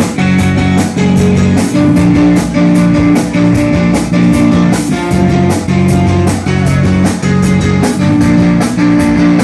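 Live rock band playing an instrumental passage: electric guitar and bass with a drum kit keeping a steady beat.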